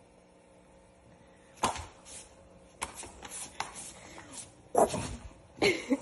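A dog giving a run of short, sharp barks, about five of them roughly a second apart, starting about a second and a half in.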